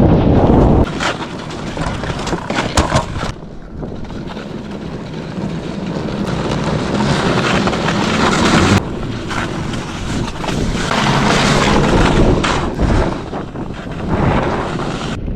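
Riding noise from a MoonBikes electric snow bike moving through snow: wind rushing over the microphone with the machine's running noise, and a few sharp knocks between one and three seconds in.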